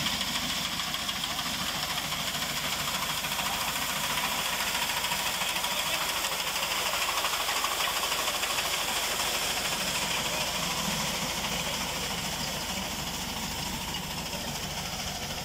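Tractor engine running steadily while its front-mounted reaper cuts standing wheat, a continuous mechanical din that fades a little over the last few seconds as the tractor moves off.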